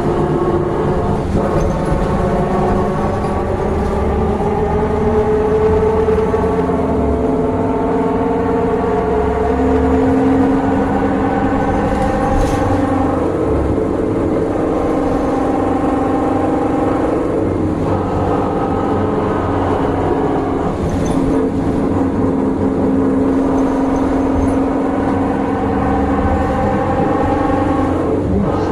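Silver Line bus engine running with a continuous tonal drone whose pitch slowly rises and falls, plus a few brief clicks. It is a horrible engine sound, which the uploader takes for a failing engine rod.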